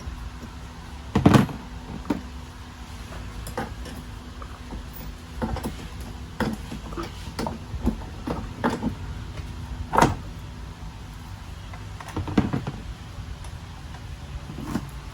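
Irregular knocks, clacks and clicks of hard parts being handled, with a few louder thumps: one about a second in, one about ten seconds in, and one a couple of seconds later.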